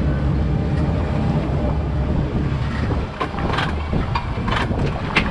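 Mercury outboard motor running as the boat moves slowly ahead, over wind on the microphone and water rushing past the hull. A few short sharp sounds come in the last two seconds.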